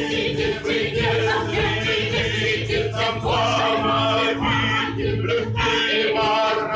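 Several voices singing a song together, with held, wavering notes over musical accompaniment.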